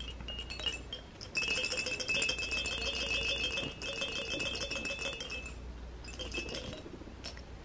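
A soft fabric jingle ball shaken by hand, the bell inside jingling rapidly with a steady ringing pitch. It starts about a second and a half in, keeps going for about four seconds, then gets lighter.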